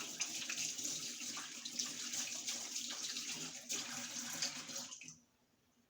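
Water running into a washing machine as it fills, a steady rush that cuts off suddenly about five seconds in.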